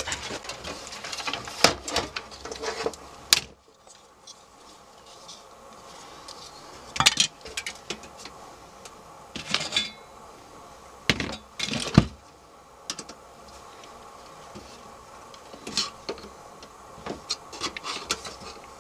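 Scattered clicks, knocks and clinks as the metal case of a partly disassembled desktop computer and the screwdrivers beside it are handled, with a run of quick clicks near the end.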